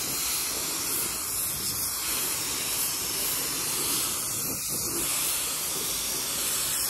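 Compressed-air gravity-feed paint spray gun spraying primer onto a car trunk lid, a steady unbroken hiss of air and atomised primer.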